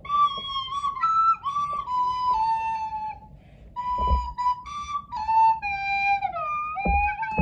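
A recorder played in a run of held notes with slight pitch bends. There is a short pause about halfway and a falling slide near the end. Two low thumps come about four seconds in and near the end.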